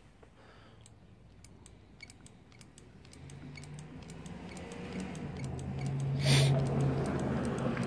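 Scooter hydraulic brake lever being pumped over and over to bleed the brake line, giving light irregular clicks. From about three seconds in a low steady hum grows louder, with a brief rush of noise a little after six seconds.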